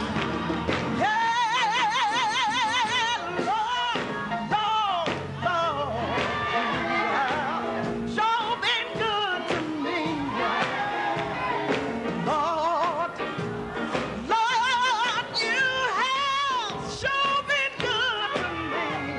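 A recorded song: a solo singer holding notes with wide vibrato over steady instrumental backing.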